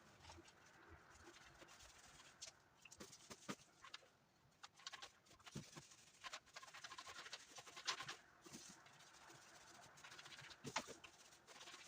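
Near silence: quiet room tone with faint, scattered clicks and taps.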